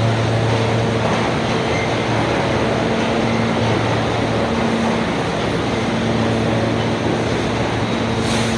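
R160 subway train standing in the station with its doors open, its onboard equipment giving a steady hum over the platform noise. A brief hiss comes near the end.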